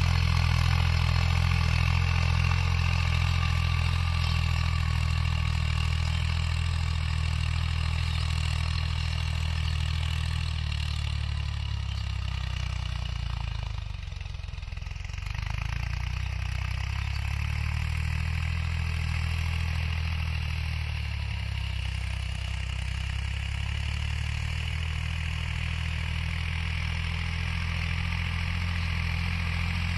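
Tractor diesel engine running steadily as it pulls a rotavator tilling dry soil. Its level dips briefly about halfway through.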